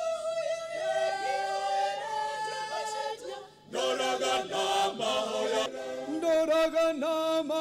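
Mixed choir of men and women singing a cappella in harmony: long held chords, a short break about three and a half seconds in, then a livelier, more rhythmic phrase.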